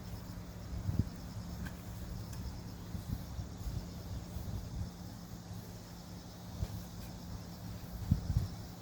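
Crickets trilling steadily in a faint, pulsing high band over a steady low hum, with a few dull thumps about a second in and near the end.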